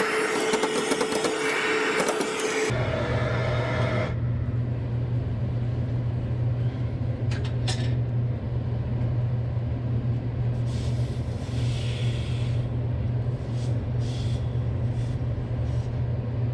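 A loud rushing hiss with a steady tone for the first few seconds, then a steady low machine hum with a few faint clicks.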